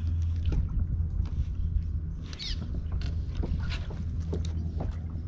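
Small water slaps and ticks against a kayak's hull over a steady low hum, with a faint high warbling call about halfway through.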